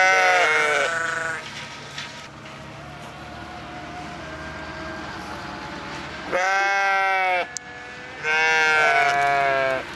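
Sheep bleating: three loud calls, each about a second long, one right at the start and two more close together near the end.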